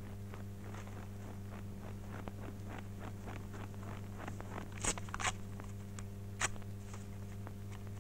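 Footsteps crunching in snow: a run of small crackling crunches, with louder ones about five seconds in and again near six and a half seconds, over a steady low hum from the old film soundtrack.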